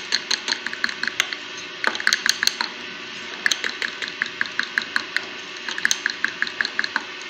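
A metal spoon beating yogurt in a glass tumbler, clinking rapidly and unevenly against the glass, with a short pause about three seconds in.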